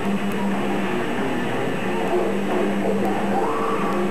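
Live metal band playing distorted electric guitar with drums in a loud, continuous wall of sound, picked up from the crowd by a VHS camcorder's microphone.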